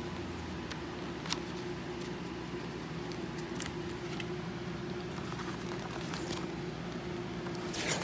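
Light handling of a paper instruction booklet: a few soft clicks and rustles of pages and fingers over a steady low hum in the room.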